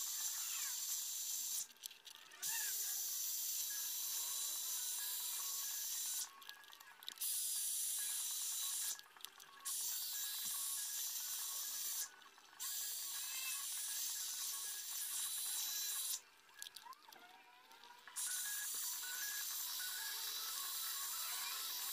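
Hair dryer blowing hot air onto a motorcycle headlight housing to heat its sealant: a steady high hiss that stops briefly about five times.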